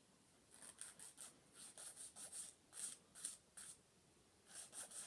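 Nail file rasping against a dog's toenails in faint, short, quick strokes, about a dozen in a run, then a pause of about a second and three more strokes near the end.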